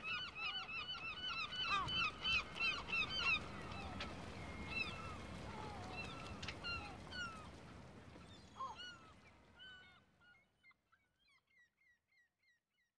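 A flock of birds calling in quick, chattering runs over a steady outdoor hiss. The whole fades out about ten seconds in, leaving a few faint calls.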